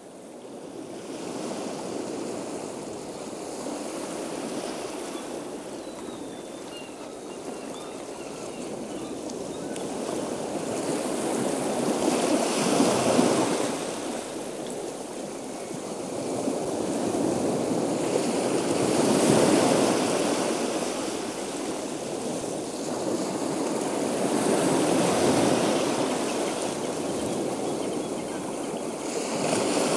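Ocean surf: waves breaking and washing in, swelling and ebbing about every six seconds, fading in at the start.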